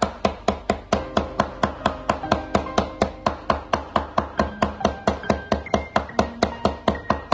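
Cleaver chopping lean pork into mince on a wooden cutting board: rapid, even strikes, about five a second.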